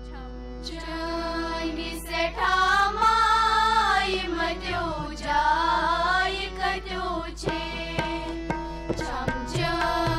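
A group of girls singing a Kashmiri song in unison, accompanied by tabla and held harmonium notes; the voices come in about two seconds in over the sustained harmonium drone.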